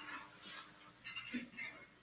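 Near silence: room tone with a few faint, brief, soft noises a little past the middle.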